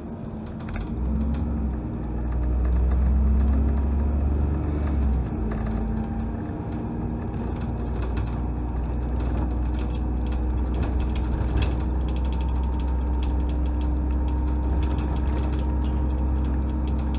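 Dennis Trident double-decker bus under way, heard from the top deck: the diesel engine's low drone swells louder about one to five seconds in, then settles to a steady run, with the bus body and fittings rattling and clicking throughout.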